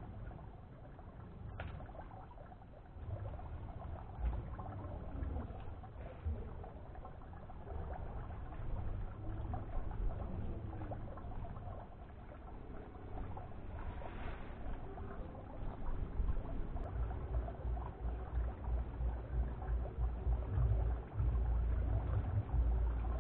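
Water jetting from a pipe and splashing steadily into a tarpaulin fish pond. A low, uneven rumble grows louder in the second half.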